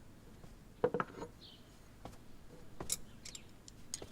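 A pair of metal scissors handled and snipped, sharp light clicks in two short clusters, about a second in and again near three seconds in. Faint bird chirps between them.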